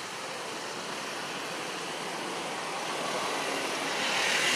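Road traffic: the steady noise of a passing vehicle that grows louder toward the end.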